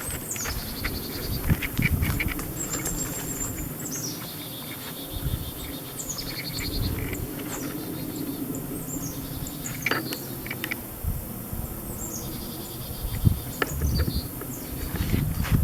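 A high-pitched animal call repeating about every three seconds, each one a thin high note that drops into a rapid pulsing trill. Under it are irregular low thuds of footsteps along a woodland path.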